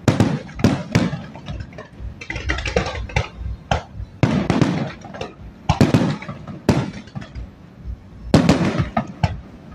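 Aerial firework shells bursting in a rapid, irregular series of sharp bangs, each followed by a brief echo.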